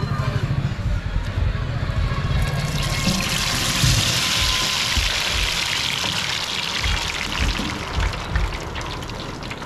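Batter-coated spiral potato on a skewer going into hot oil about two and a half seconds in: the oil breaks into a sudden loud sizzle that settles into a steady frying hiss, thinning a little near the end. Background music with a beat runs throughout.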